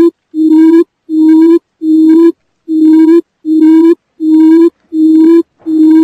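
Quail call used as a hunting lure: a short, steady, low hooting note repeated evenly, about eight notes of half a second each, a little more than one a second.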